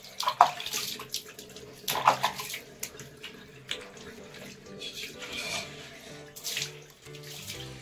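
Water splashing and pouring as a wet cat is scrubbed by hand and rinsed from a jug, in several short splashes. Soft background music underneath.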